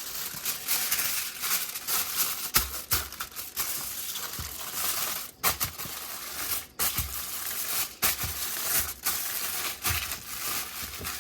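Kitchen foil being crumpled and folded tightly around a seasoned fish, a continuous crinkling with irregular sharper crackles as the ends are folded over.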